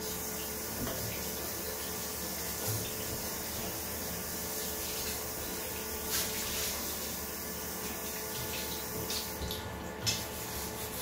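Bathroom basin tap running, the stream splashing into the ceramic sink and over hands rinsing beneath it; the flow stops near the end.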